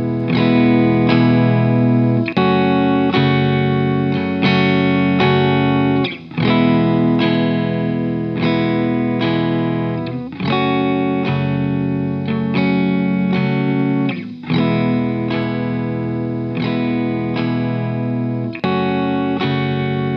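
Crunchy, lightly overdriven electric guitar strumming chords, struck about once a second with a new chord every four seconds or so. It is played back through a stereo 1176-style hardware compressor, and the compression sounds super clean.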